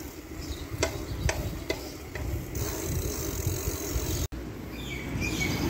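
Wind rumbling on the microphone and road noise of a mountain bike rolling along asphalt, with a few sharp clicks from the bike in the first couple of seconds.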